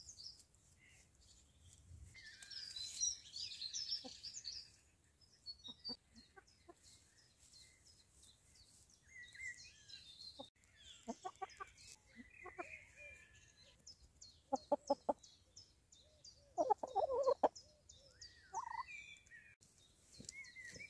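Hens clucking in short runs of low clucks, mostly in the second half, with small birds chirping higher up a couple of seconds in.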